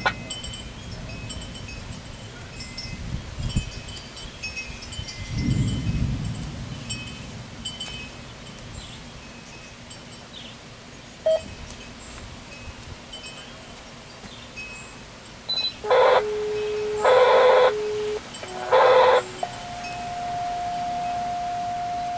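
Wind chimes tinkling on and off, with a low rumble about five seconds in. Near the end a radio scanner breaks in, much louder than the chimes, with three loud tone bursts and then one long steady tone: a dispatch alert tone-out ahead of a call.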